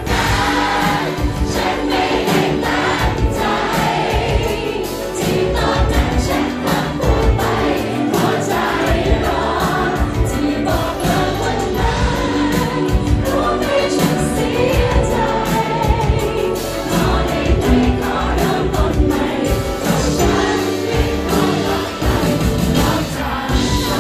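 A woman singing a pop ballad with a live band: drums, electric guitar and keyboard keeping a steady beat under the vocal.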